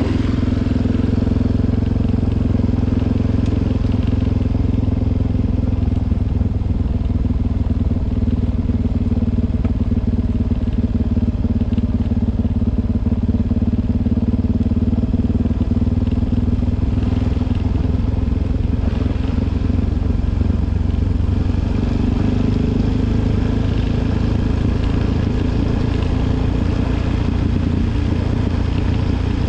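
Suzuki DR-Z400's single-cylinder four-stroke engine running steadily under way, its pitch drifting slowly up and down.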